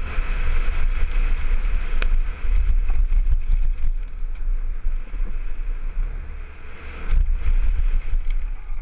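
Wind buffeting a helmet-mounted camera's microphone at speed, over the rumble and rattle of a downhill mountain bike's tyres on a dirt and gravel trail. A sharp knock about two seconds in and a few more near the end.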